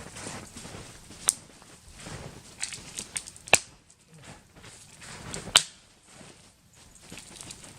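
Dry dead cedar branches being snapped by hand: three sharp cracks about two seconds apart, with softer rustling and crackling between.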